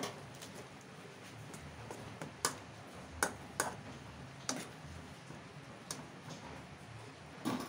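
A metal utensil clinking against a stainless-steel saucepan while stirring instant noodles: several sharp, short taps at irregular intervals.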